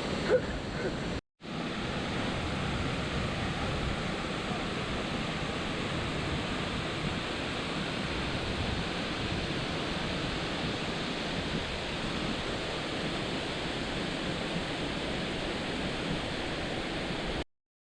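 A waterfall's water rushing as a steady, even noise. It cuts out for a moment about a second in and stops abruptly near the end.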